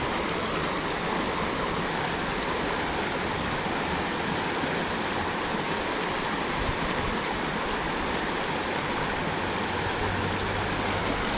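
Creek water flowing: a steady, even rush of moving water.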